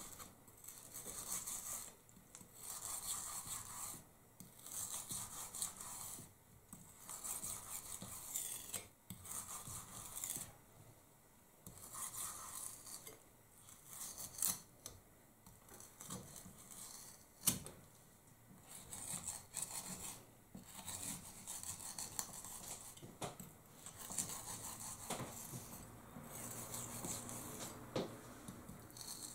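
Kitchen knife scoring the skin of raw chicken legs in a glass baking dish: repeated short scraping strokes, about one every second or two, with now and then a sharp click of the blade or hand against the dish.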